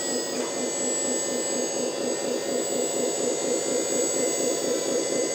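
An RC truck's onboard sound module, heard through its small speaker, playing a simulated truck diesel engine running steadily with an even pulsing beat. A thin, steady high-pitched whine lies over it.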